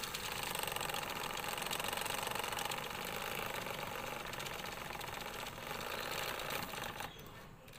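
Small battery-powered DC motor spinning a homemade pen-tube driveshaft through plastic universal joints to a toy axle: a steady whir with a fine, fast rattle. It stops near the end.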